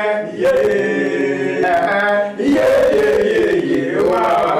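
Gospel choir singing a refrain in a Nigerian language, several voices holding long notes with a short breath break about two seconds in.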